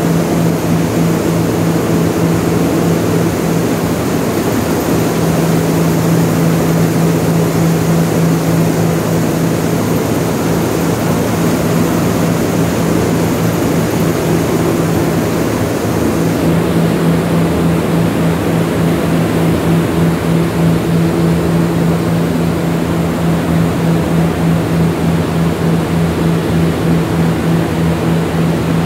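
Grain processing plant machinery running steadily: electric motors and bucket elevators giving a loud, constant low hum over an even mechanical rush.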